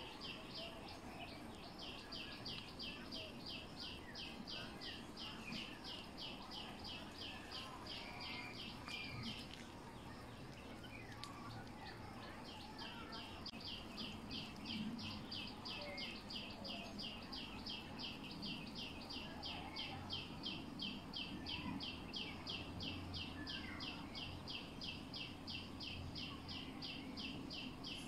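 Outdoor ambience dominated by a high, even chirp repeated several times a second, which breaks off for about three seconds near the middle before resuming. Fainter scattered bird chirps and a low background hum sit beneath it.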